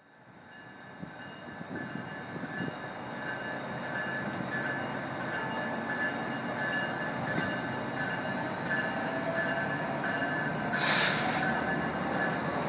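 NJ Transit Raritan Valley Line train of multilevel passenger cars pulling out of the station, its wheels and cars rumbling past the platform with a steady high whine, growing louder over the first few seconds. Near the end there is a short, loud burst of hiss.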